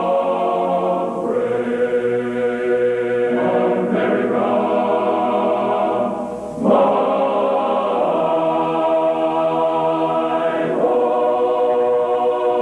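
A choir sings a national anthem in slow, held chords that change every few seconds, with a brief break about six seconds in.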